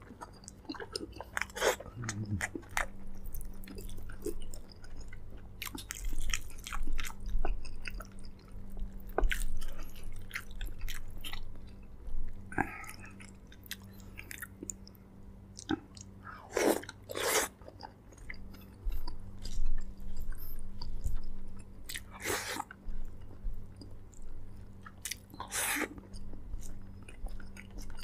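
Close-miked chewing and biting of braised pork leg, with many wet mouth clicks and a few louder bursts. A steady low hum sits underneath.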